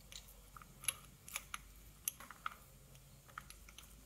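A handful of faint, sharp metallic clicks and taps, spread unevenly over a few seconds, as spark plugs and a plug wrench are handled and set into an engine's cylinder head.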